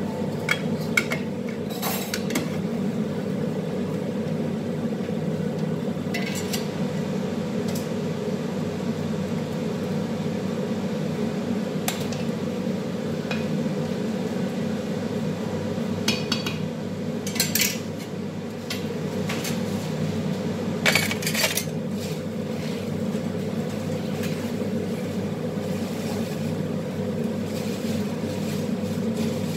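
Metal ladle and skimmer knocking and scraping on large aluminium stockpots, in scattered clinks, over a steady low hum of kitchen noise.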